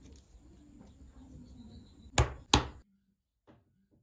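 Plastic model kit parts of a Gundam beam rifle being handled with a faint rustle, then two sharp plastic clicks about half a second apart as parts are pressed into place.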